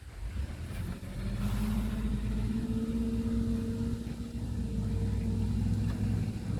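A vehicle engine running steadily, building up over the first second and then holding a low, even note.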